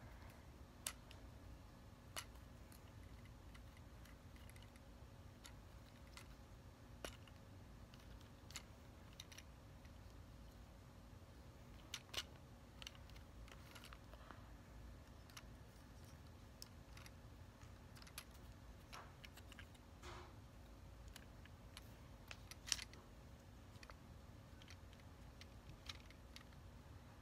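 Scattered sharp clicks and light clatter of the plastic parts and joints of a Transformers Studio Series Sideswipe action figure being handled and transformed, a dozen or so at irregular intervals over faint room tone.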